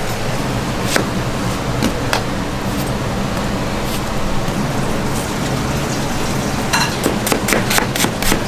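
Kitchen knife striking a thick round plastic chopping block: a few single chops spaced about a second apart, then a quick run of cuts near the end as an onion is sliced. A steady low hum runs underneath.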